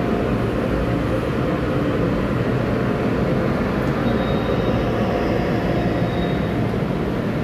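Steady rumble and hum of a stainless-steel commuter electric train alongside the platform, with a faint thin high whine for a couple of seconds near the middle.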